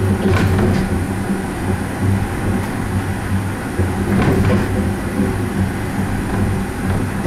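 Skyrail suspended gondola car running along its elevated guideway, heard from inside the cabin: a steady low running hum with scattered clicks and knocks from the running gear.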